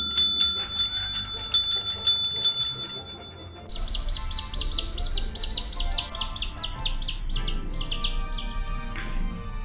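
A counter service bell dinged over and over, about three rings a second, for the first three seconds or so. Then a fast run of high-pitched chirps, about five a second, from about four seconds in until near the end.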